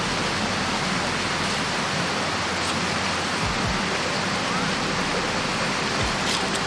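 Steady, even rush of water, with a couple of faint low knocks about three and a half and six seconds in.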